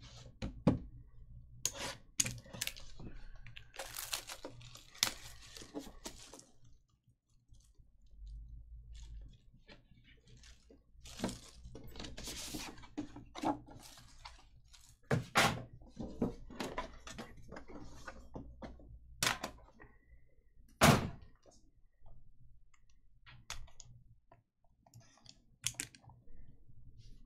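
Hands opening a sealed Panini Immaculate trading-card box: cardboard scraping and rustling, plastic wrap crinkling and tearing, and irregular clicks and sharp knocks as the box and its black metal tin are handled, the loudest knock a little past two-thirds of the way through.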